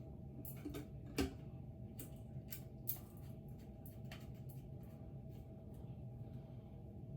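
Scattered light clicks and taps, most of them in the first four seconds and fewer later, of small fan light-kit parts being handled, over a steady low hum.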